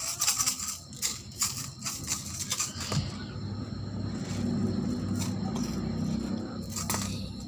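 Clear slime with foam beads being squeezed and worked by hand, giving a run of crackling clicks and pops. About three seconds in, a low steady rumble of unknown source rises and holds for most of the rest.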